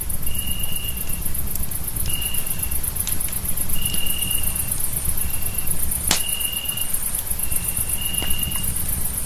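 Night insects: a cricket trilling in short bursts of a second or less at one steady pitch, irregularly spaced, with a higher, continuous pulsing insect chorus behind it over a low rumble. One sharp click about six seconds in.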